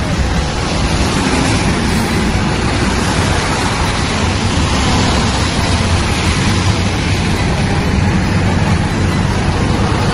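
Road traffic passing steadily on a wet road: lorries, a bus and cars, a constant wash of tyre noise over low engine rumble.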